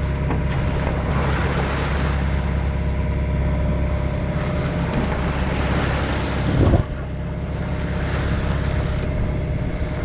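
Bow wave rushing and splashing along the hull of an Oyster 485 sailing yacht under way, with wind on the microphone and the yacht's diesel engine humming steadily underneath while motor-sailing. About two-thirds of the way through, one louder wave splash.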